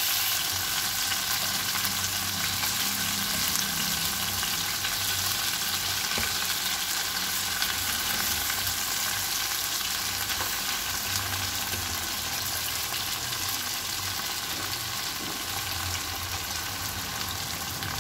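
Marinated prawns shallow-frying in coconut oil in a steel pan over a low flame: a steady, continuous sizzle that eases a little as it goes on.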